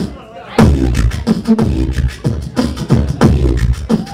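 Beatboxing into a handheld microphone: vocal kick drums, snares and hi-hat clicks with short hummed bass notes in a fast rhythm. It resumes after a brief pause about half a second in.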